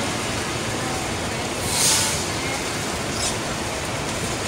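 Steady road and traffic noise inside a tour bus driving through heavy rain, with a short hiss about two seconds in.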